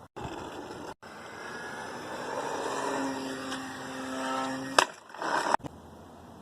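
Radio-controlled model plane's motor running with a steady, pitched whine that swells for a few seconds, then a sharp click and a brief rush of noise before it cuts off abruptly.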